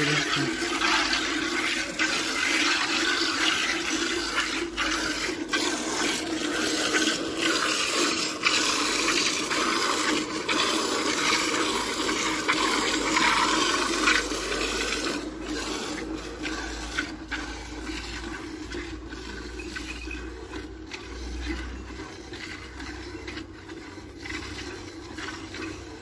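Milk squirting in streams from a water buffalo's teats into a steel bucket of frothy milk during hand milking, squirt after squirt. The squirting grows quieter about halfway through.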